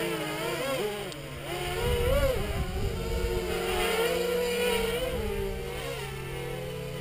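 Peon 230 quadcopter's electric motors and propellers whining, the pitch swooping up and down several times as the throttle is punched and cut during acro flying.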